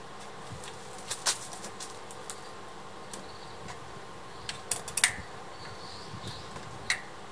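A few sharp clicks and taps of a hand tool and metal parts being handled on a mountain bike's front suspension fork, the loudest cluster about five seconds in, over a faint steady hum.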